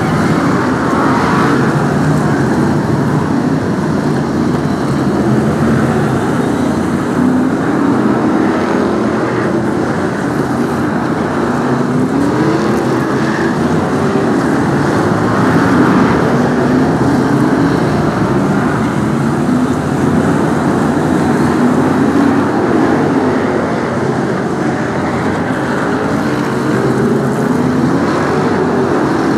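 A pack of BriSCA F1 stock cars racing close together, their V8 engines running loud and unbroken, the pitch wavering up and down as the cars ease off and accelerate through the bends.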